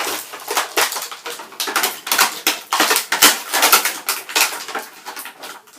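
Stiff plastic toy packaging crackling and clicking in a dense, irregular run as a toy championship belt is worked free of it.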